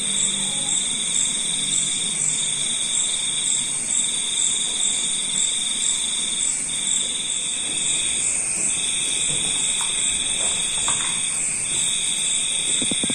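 Insects trilling steadily: a high trill in phrases a second or two long with short breaks, and a faster, higher pulsing trill above it.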